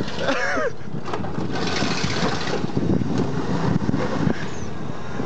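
Ford F-150 mud truck's engine running under load as it shoves a Ford Taurus, with a rush of hissing noise about two seconds in.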